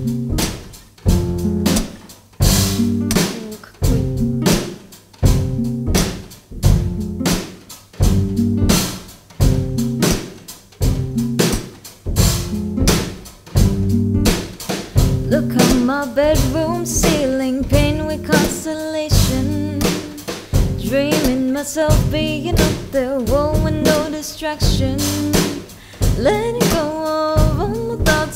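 Acoustic guitar strumming with a drum kit played softly behind it. A woman's voice comes in singing about halfway through.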